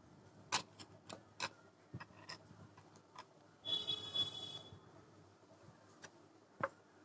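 Hand embroidery on cloth stretched in a hoop: a run of sharp, irregular clicks as the needle pierces the taut fabric, then about three and a half seconds in a rasp lasting about a second as the thread is drawn through, and one more click near the end.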